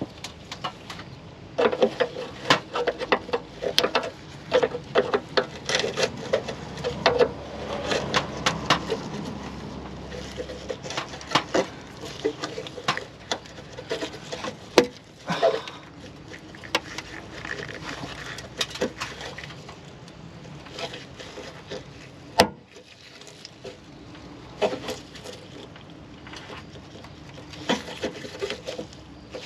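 Irregular metal clicks, taps and knocks of a wrench working at a rusted brake line fitting, with scraping and handling noise. The loudest knocks come about halfway through and again about three quarters of the way in.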